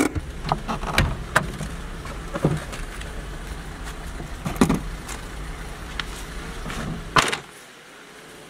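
A passenger getting out of a car: clothing rustle and a series of clicks and knocks from the door and seat, then a car door shut with a loud thud about seven seconds in, after which the cabin goes quieter. A low rumble of the car runs underneath.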